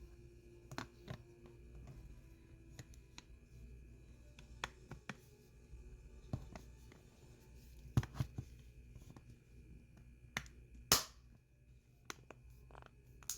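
Scattered small clicks and taps of a cell phone and its parts being handled during screen-replacement work, the loudest a sharp click about eleven seconds in, over a faint steady hum.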